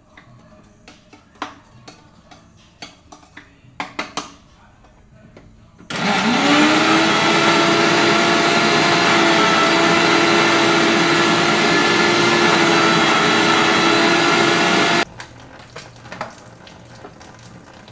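A few light clicks and knocks, then about six seconds in a small electric blender starts grinding peppers. Its motor whine rises quickly, runs steadily for about nine seconds and cuts off suddenly.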